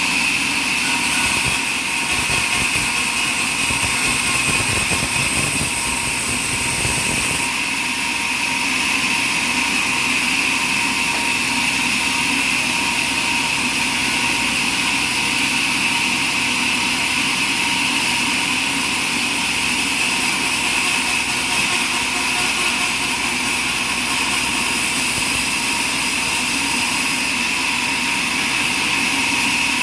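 Sawmill machinery running steadily with a constant mechanical drone and a high whine; a low rumbling is added for the first several seconds.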